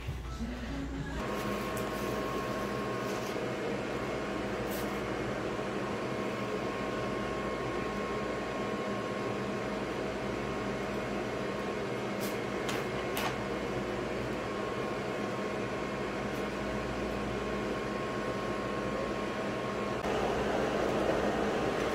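Steady mechanical hum with a few held tones, like a fan or air-conditioning unit running, with a few faint clicks partway through. The sound changes near the end.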